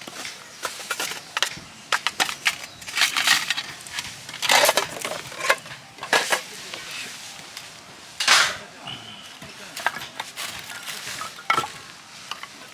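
Handling noises: irregular clicks and knocks with several louder rasping, crunching bursts, as of camp gear being handled.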